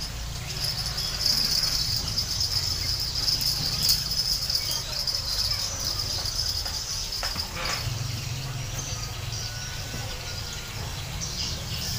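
Insects chirring steadily in one high, even band, louder in the first half, over a low rumble.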